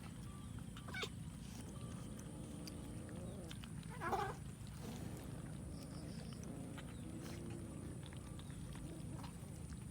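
A cat gives one short meow about four seconds in, over a steady low background hum, with a click about a second in and a few faint ticks.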